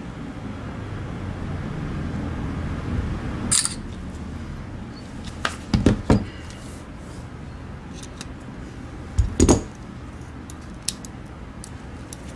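Sharp plastic clicks and knocks from a dismantled Logitech G Pro Wireless mouse's button frame being handled and taken out of a small clamp holder, over a low steady hum. The loudest come in quick pairs about six and nine and a half seconds in, with a few light ticks after.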